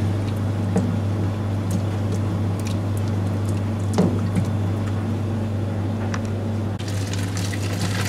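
Philips TopTwin twin-tub washing machine boiling a load: water gurgling and splashing as its heater under the agitator forces the boiling water up the agitator column and out of the vent holes at the top, over a steady low hum. One sharper splash comes about four seconds in, and the water noise grows louder near the end.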